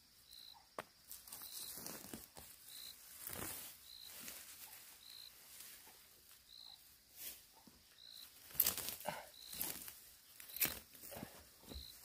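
Weeds being torn out of dry soil with gloved hands and a short hooked hand weeding tool: scraping, ripping roots and rustling of uprooted plants in uneven bursts, busier in the second half. A short high chirp repeats about once a second in the background.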